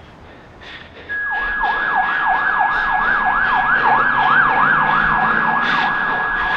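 Emergency-vehicle siren in a fast yelp, its pitch sweeping up and down about three times a second over a steady high tone. It starts about a second in.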